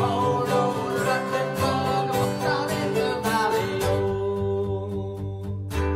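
Acoustic guitar strumming a traditional Irish folk song, with singing for the first three seconds or so, then guitar alone.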